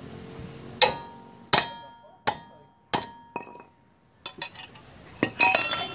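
Metal pieces knocked together: about five sharp, separate clinks, each ringing briefly, then a quicker jangling run of clinks near the end.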